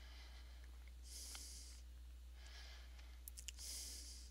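Soft breaths into a headset microphone, three in all, with a few faint mouse clicks, over a low steady electrical hum.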